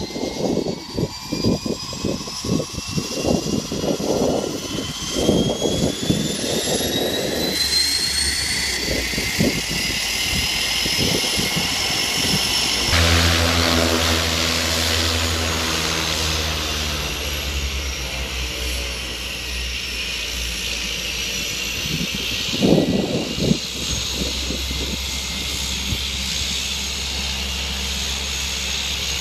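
Cessna 208 Caravan floatplane's turboprop engine: a high turbine whine climbs steadily in pitch as the engine spools up, over uneven low rumbling. About halfway through it gives way to a steady propeller drone with a low hum as the plane taxis on the water.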